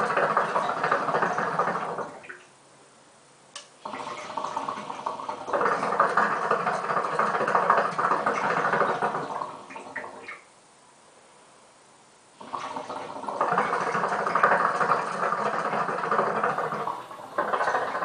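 Hookah water bubbling as smoke is drawn through the base in long, even pulls while the tobacco is being warmed up. Three pulls of several seconds each, with a near-silent pause of about two seconds between them, and a fourth pull starting near the end.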